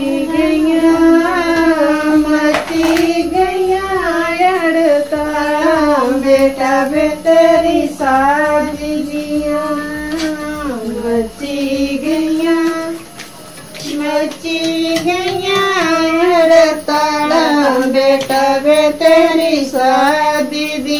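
A woman's voice singing a traditional Himachali wedding folk song, unaccompanied, with a short pause partway through.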